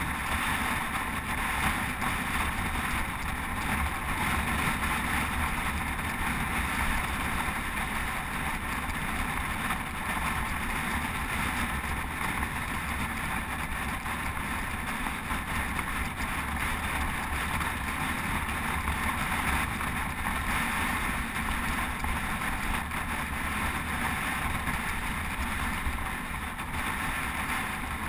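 Steady rush of wind on a GoPro's microphone together with the tyre hum of road bicycles rolling on asphalt.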